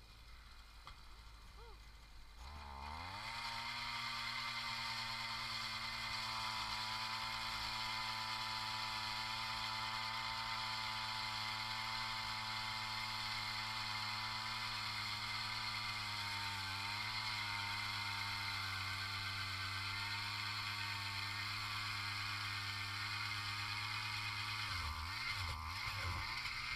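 A small gas engine, most likely a powered ice auger, starts up about two seconds in with a rising pitch and runs at a steady high speed, its pitch dipping briefly partway through, then winds down near the end.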